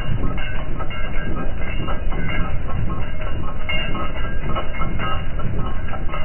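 Almond harvesting machinery running with a loud, steady clattering rattle.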